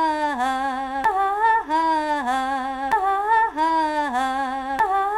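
A woman's singing voice holding one vowel that dips in pitch at its end, the same short snippet repeated over and over about once a second, with a click at some of the joins: a stuttering loop edit.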